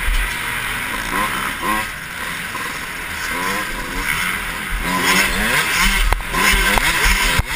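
Dirt bike engine revving hard, its pitch climbing and dropping again and again with the throttle and gear changes, heard from the rider's helmet with a haze of wind and track noise over it and a couple of sharp knocks near the end.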